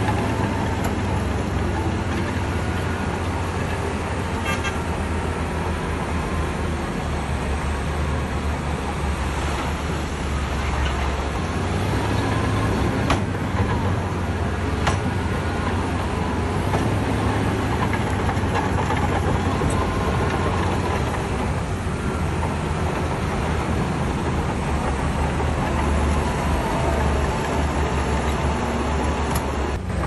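Heavy diesel earth-moving machinery running steadily under load, a deep low rumble with a few sharp metallic clanks, such as a bulldozer's tracks and blade or stone striking a truck bed.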